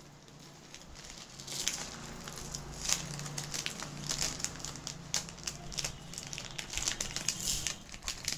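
A beaded necklace being handled: strands of coral beads and gold-coloured metal balls click and rustle against each other in quick, irregular clicks, starting about a second and a half in.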